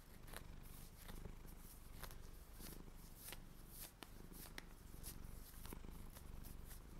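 Fingers and nails rubbing and scratching over cotton knee-high socks, faint and close, with scattered small crisp ticks over a low rough rustle.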